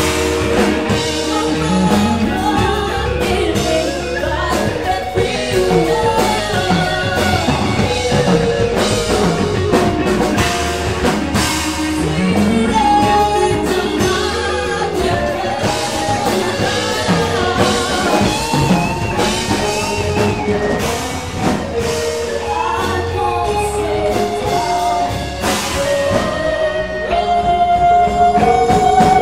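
Live rock band playing: a woman sings lead over electric guitars, bass and a drum kit, ending on a long held note.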